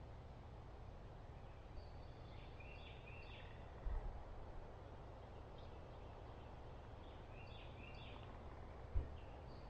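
Quiet woodland ambience: a bird calls twice in the distance, a few seconds apart, over a low steady rumble, with two dull low thumps about four and nine seconds in.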